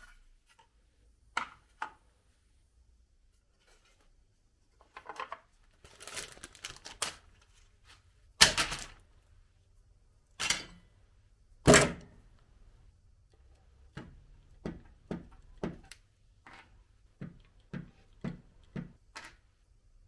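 Irregular knocks and thuds of hand work, with a scraping stretch about six seconds in and two loud impacts about eight and twelve seconds in, then a quick run of a dozen lighter taps.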